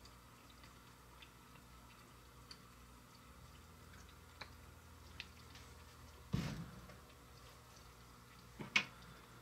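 Quiet handling of a plastic vinegar bottle and toy plastic measuring spoons while pouring: a few faint ticks, a low knock about six seconds in, and a sharp click near the end.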